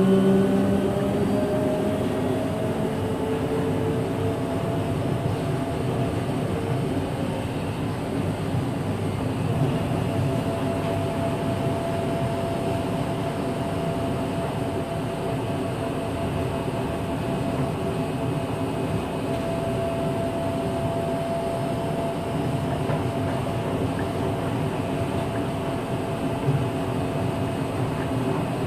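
Kanazawa Seaside Line 2000 series rubber-tyred automated guideway train running. Its Toyo IGBT-VVVF inverter whine rises in pitch over the first few seconds as the train accelerates. It then settles into steady rolling noise with a faint held tone.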